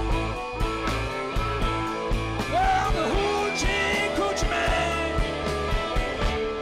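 Live rock band playing: electric guitars, bass and drums keeping a steady beat, with a harmonica played into a hand-held microphone over them. Some notes bend in pitch about halfway through.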